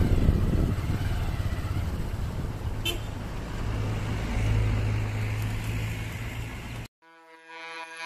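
Steady low rumble of wind and road noise from a camera moving along a road, with a brief toot about three seconds in. Near the end the rumble cuts off suddenly and background music fades in.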